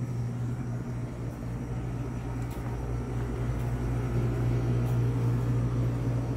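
Steady low hum of a store's air-handling and refrigeration equipment, with a few faint ticks.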